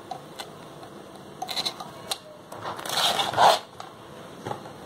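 Metal spoons clinking against a stainless-steel mixing bowl: a few light taps, then a louder jangling rattle of about half a second a little after the middle.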